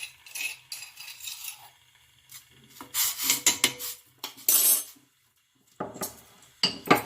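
Kitchen utensils scraping and clinking against a metal vessel as crushed ginger is scraped out into the pot. Irregular scrapes and taps, a brief gap, then a couple of sharp clinks near the end.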